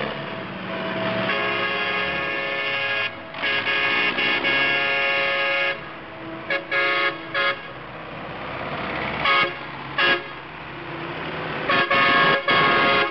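Horns on passing tractors honking: two long blasts in the first half, a run of short toots in the middle, and more blasts near the end, over the tractors' running engines.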